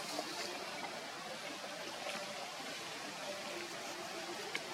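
Steady hissing background noise with a few faint clicks.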